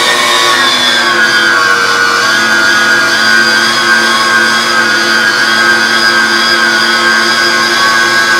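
Cabela's heavy-duty electric meat grinder running steadily with a loud motor whine as elk meat is pushed down its feed tube with a stomper. The whine drops slightly in pitch about a second in and then holds.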